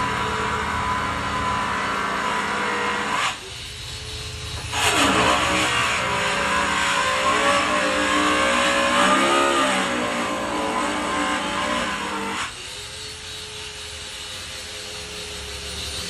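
A motor vehicle engine running close by. It drops away sharply about three seconds in, comes back louder with its pitch rising and falling as it is revved, and drops again about twelve seconds in.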